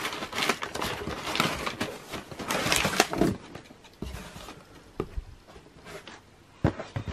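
Crumpled kraft packing paper rustling and crinkling and cardboard scraping as a shoebox is pulled out of a shipping carton. It then turns quieter, with light handling and a few soft knocks.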